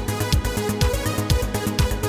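Electronic dance music with a steady four-on-the-floor kick drum, about two beats a second, and bright hi-hat strokes between.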